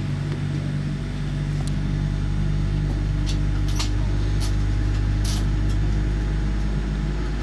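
GE GEnx-1B turbofan on a Boeing 787-9 starting up, heard from inside the cabin as a steady low rumble that swells slightly, with several short high clicks in the middle.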